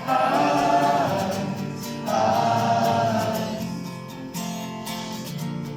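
Acoustic guitar with a crowd of voices singing along, two sung phrases in the first half, then held notes over the guitar.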